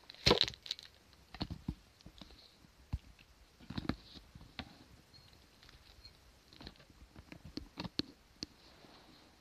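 Scattered clicks, taps and soft knocks of a handheld phone being handled and turned around, the loudest just after the start.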